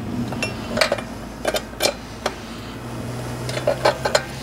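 Irregular sharp metallic clicks and clinks, about half a dozen, as the valve lifters and nearby parts are handled and shifted inside the open crankcase of a Briggs & Stratton single-cylinder OHV Intek engine. A steady low hum sits underneath.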